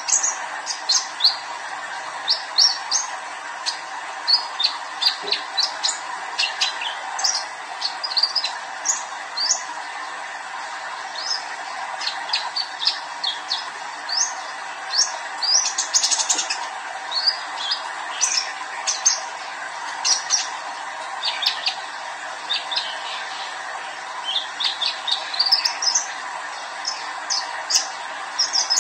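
Young male sunbird (kolibri ninja) singing non-stop: rapid runs of short, high chirps and twittering notes, some sliding in pitch, over a steady background hiss.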